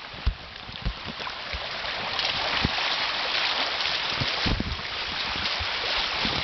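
Flash floodwater rushing steadily, with rain still falling, and occasional low thumps of wind on the microphone. The rushing grows louder about two seconds in.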